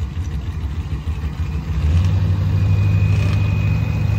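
Diesel pickup truck engine running, getting louder and steadier about two seconds in, when a thin steady high whine joins it.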